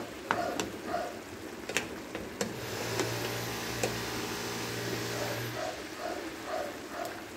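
A spoon stirring chicken adobo simmering in its sauce in a pan, with scattered light knocks and scrapes of the spoon against the pan over a soft hiss of the simmering sauce. A steady low hum runs for about three seconds in the middle.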